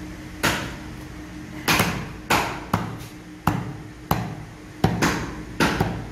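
A heavy steel cleaver chopping raw meat on a wooden chopping block: about eight sharp chops at an uneven pace, over a faint steady hum.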